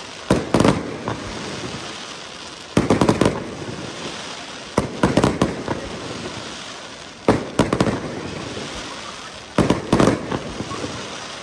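Fireworks display: five clusters of shell bursts, each a quick run of several sharp bangs, coming about every two and a half seconds, with a steady crackling hiss between them.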